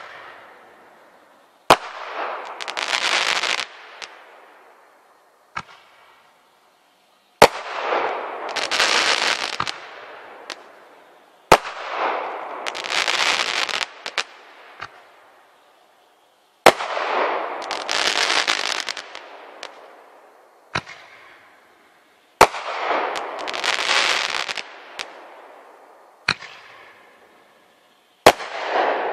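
Crackling artillery shells bursting one after another, six in all, each a sharp bang followed by a second or two of dense crackling. Fainter single pops fall between some of the bursts.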